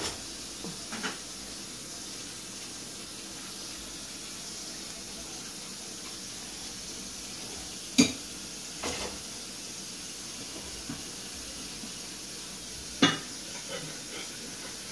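Steady hiss with a few sharp knocks of rubber flip-flops on concrete as puppies play with them: a loud one about eight seconds in, a softer one a second later, and another near the end.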